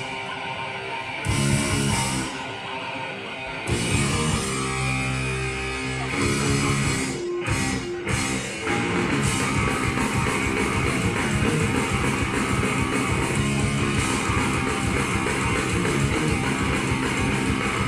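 A punk rock band playing live with distorted electric guitars, bass and drums. The first few seconds are stop-start hits with short gaps; there is a brief break about seven seconds in, and then the full band plays on without stopping.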